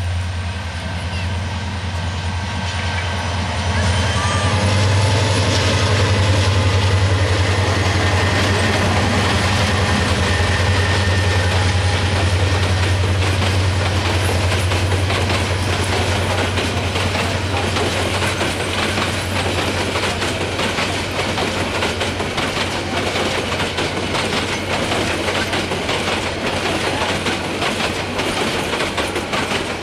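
Bangladesh Railway intercity passenger train passing close by. The diesel locomotive's engine drones low and is loudest about four to ten seconds in; then the coaches roll past with a steady clickety-clack of wheels over the rail joints.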